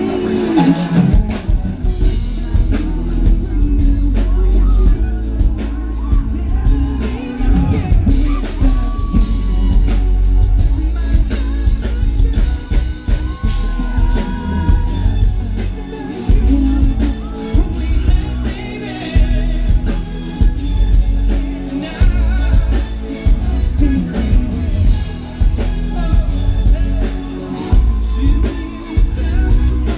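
Pop group singing a song live at a sound check, with drums and heavy bass.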